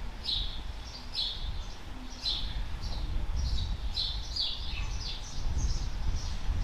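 Small birds chirping: a run of short, high chirps, a few each second, over a steady low rumble.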